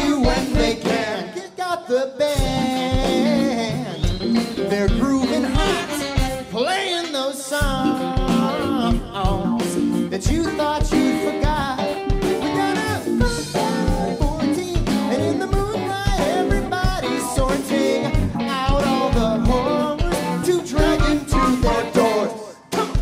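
Live rock band playing with singing: lead and backing vocals over electric guitars, bass and a drum kit keeping a steady kick-drum beat, which drops out briefly twice.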